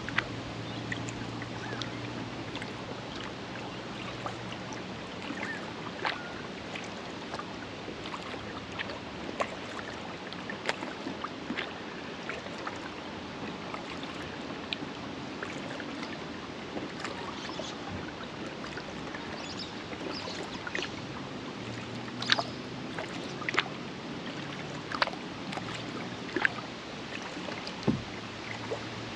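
Kayak paddling: water dripping and splashing off the paddle blades over a steady wash of lapping water, with sharper strokes about every one and a half seconds near the end. A pied currawong calls about five seconds in.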